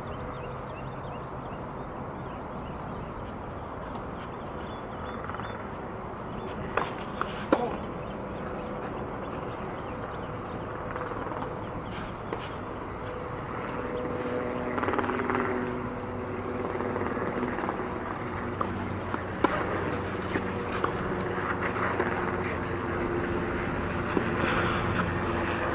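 Outdoor court ambience: a steady background hum like a distant engine, getting stronger in the second half. A few sharp knocks typical of a tennis ball being bounced and struck come through, a cluster about seven seconds in and more spaced ones near the end.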